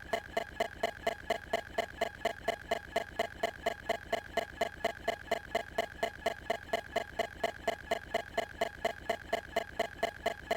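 Steady, even ticking, about four ticks a second, each tick carrying the same bright ringing tone.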